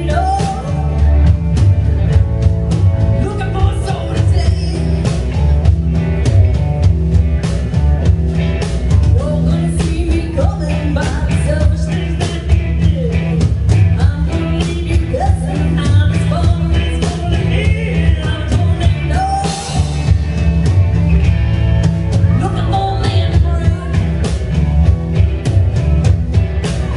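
Live rock band playing with a woman singing lead over electric guitars and a drum kit.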